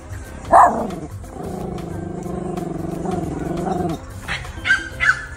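Bichon Frisé barking at a passing corgi: one loud sharp bark about half a second in, then a quick run of three or four barks near the end.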